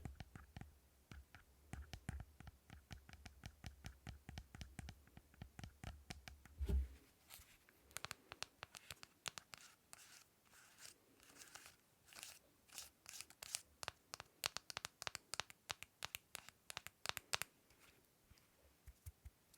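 Close-up tapping and scratching on a small object: quick taps about four a second for the first several seconds, one louder knock, then less regular clicking and scratching strokes.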